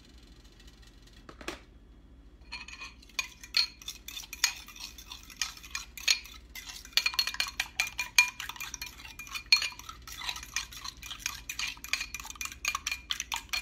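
A fork whisks one egg with a little milk in a white ceramic bowl: quick, rapid metallic clinks of the tines against the bowl, starting about two and a half seconds in. A single knock comes just before.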